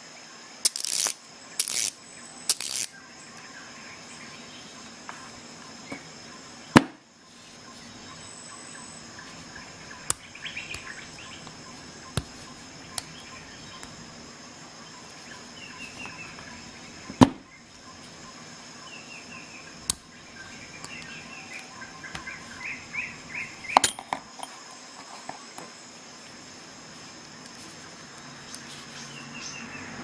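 Small Facom ratchet handle worked by hand: short runs of fine ratchet clicking, mixed with a few sharp single metallic clicks and three brief scratchy bursts near the start.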